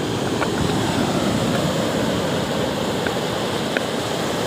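Small waves breaking and foaming in over a stony beach, a steady wash of surf.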